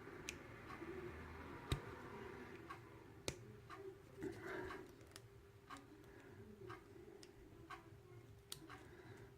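Faint, regular ticking about twice a second, with a brief soft handling rattle about four and a half seconds in.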